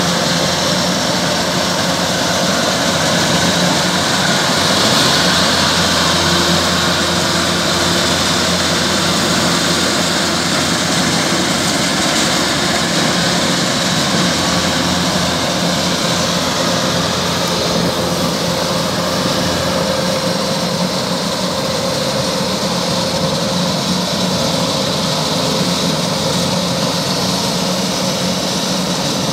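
Kubota DC-105X combine harvester's diesel engine running steadily as the machine cuts rice.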